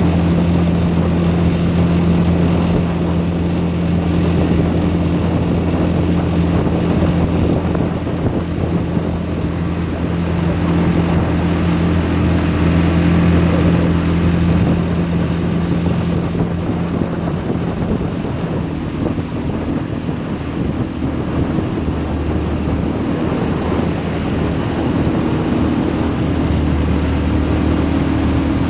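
A jon boat's motor running steadily under way, its engine note shifting a little in the second half.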